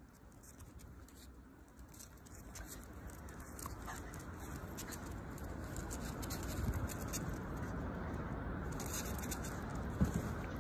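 Small dog's claws pattering and scrabbling on paving as it plays with a ball, over a steady outdoor background noise, with a thump near the end.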